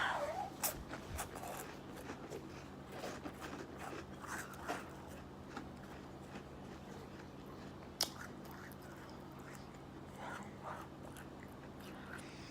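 A person chewing tuna and crackers close to the microphone: crunching and small wet mouth clicks, busiest in the first few seconds, with one sharper click about eight seconds in.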